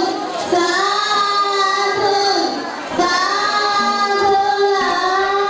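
High voices singing a slow melody in long held notes, a new phrase starting every second or two.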